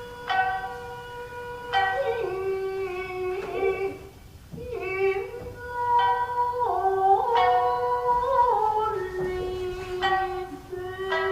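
Japanese classical dance music: a voice sings long held notes that slide and waver between pitches, over the sharp plucks of a shamisen.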